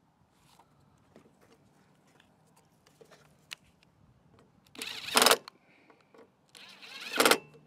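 Socket ratchet clicking in two short bursts, about five and seven seconds in, as the ignition coil's mounting bolts are tightened with a paper card holding the air gap to the flywheel magnet.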